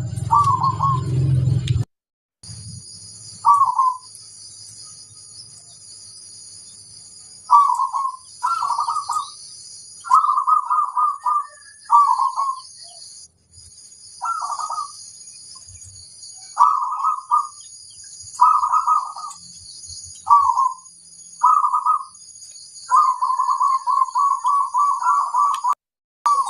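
Zebra dove (perkutut) cooing: a string of about a dozen short rolling coos a second or two apart, ending in one longer rolling coo near the end. A steady high-pitched whine runs behind the calls.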